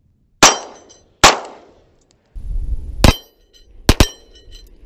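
Stoeger STR-9C 9 mm pistol fired two-handed: five sharp shots, each with a short ringing tail, unevenly spaced, the last two almost on top of each other.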